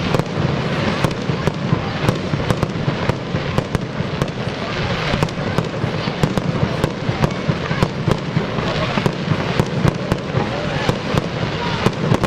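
Aerial fireworks bursting in a continuous barrage: a rapid, irregular run of bangs and crackles, several a second, over a steady rumbling wash of noise.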